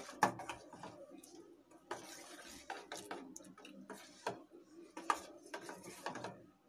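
Metal spoon stirring thick mango pulp in a steel pot, clinking and scraping against the pot's sides at irregular moments.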